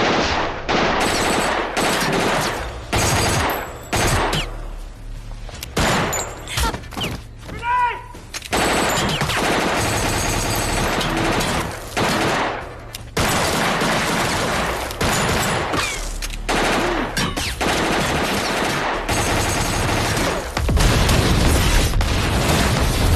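Film-soundtrack gunfight: near-continuous bursts of automatic gunfire mixed with single shots, growing louder and deeper in the last few seconds.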